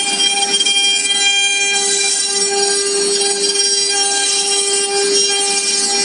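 CNC router spindle running at a steady high pitch with a constant whine while the bit cuts into a wooden board, with a rough cutting hiss under the tone.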